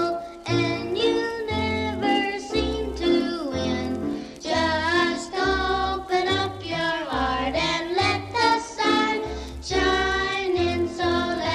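Young children singing together in unison over a bouncy band accompaniment with a steady, pulsing bass line.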